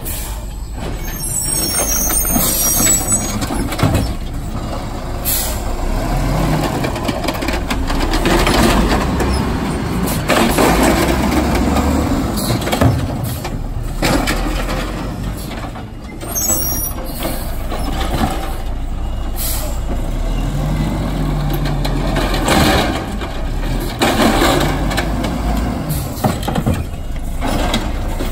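Diesel engine of an automated side-loader garbage truck running and revving up and down as it moves between carts and works its hydraulic arm. A few sharp air-brake hisses come as it stops.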